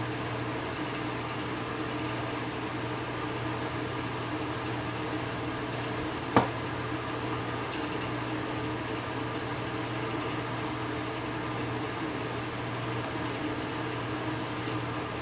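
Steady low workshop hum, like a fan or motor running, under a soft hiss. One sharp click sounds about six seconds in.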